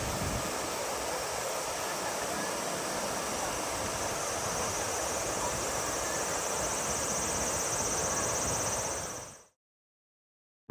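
Steady rush of a mountain stream with a high, continuous insect buzz over it, the buzz growing stronger before everything fades out about nine seconds in, leaving silence.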